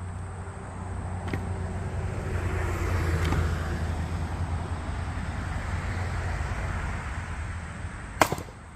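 A steady low rumble that swells and then fades, with one sharp loud crack near the end: an axe striking and splitting a dry log.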